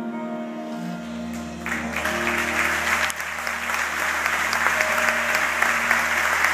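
The last held notes of the live song die away, and audience applause breaks out about a second and a half in. The applause swells and carries on steadily.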